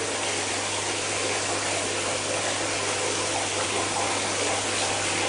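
Water running steadily in a bath while a dog is being washed, over a steady low hum.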